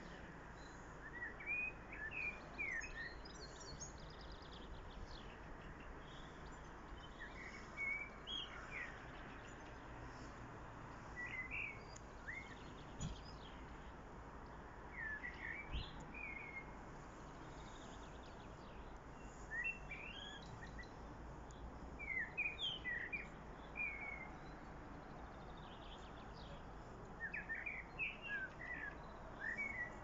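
Common blackbird singing: short song phrases a few seconds apart, about seven in all, over steady background noise.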